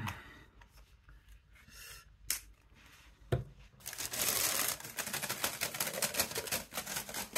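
A few soft clicks of handling, then from about halfway through a paper bag of plain crisps being shaken hard with seasoning powder inside, the crisps rattling and the paper crackling rapidly without a break.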